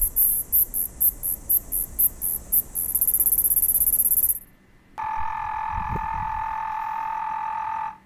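Two cicada songs one after the other. First a Kikihia subalpina sings a very high-pitched song: a quick run of short pulses, about four a second, that merges into a continuous buzz and stops a little over four seconds in. After a short gap, a bladder cicada (Cystosoma saundersii) gives a low, steady hum of several tones.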